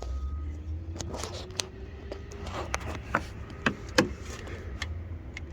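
Metal hand tools clinking and scraping against the engine, a string of sharp clicks and knocks, as a socket is worked onto a bolt low on the thermostat housing without reaching it. A steady low hum runs underneath.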